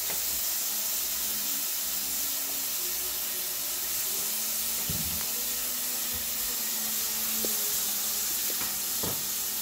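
Onions, green peppers and freshly added minced garlic sizzling gently in oil in a caldero, a steady soft hiss with a couple of faint knocks.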